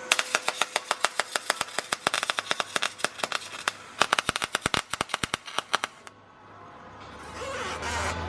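Rapid series of sharp clicks, several a second and slightly irregular, like a tool working in a workshop; they stop about six seconds in, leaving a quieter low hum that builds near the end.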